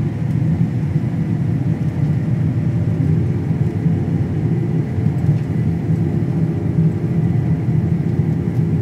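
Combine harvester running steadily while cutting: a constant low engine and machinery rumble, heard from inside the cab.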